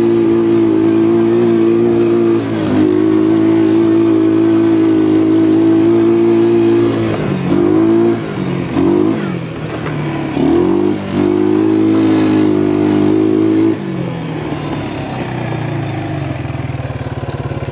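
ATV engine under way, running at a steady speed, then dipping and rising in pitch several times as the throttle is eased off and opened again. It goes back to steady running, then falls to a lower speed about fourteen seconds in and settles toward idle near the end.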